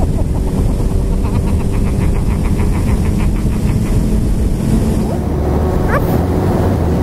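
Suzuki GSX-R1000 sportbike's inline-four engine running at a steady cruise, heard from the rider's helmet with wind and road rush.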